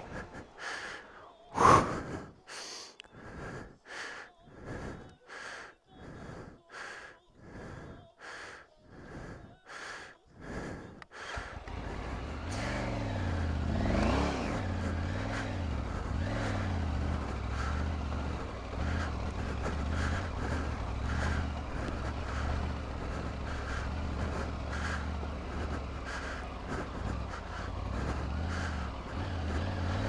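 Heavy, rhythmic panting, about one and a half breaths a second, with a loud gasp near the start. About eleven seconds in, the Triumph Tiger 900 Rally Pro's three-cylinder engine comes in and runs on with a low rumble, revving up and back down a few seconds later.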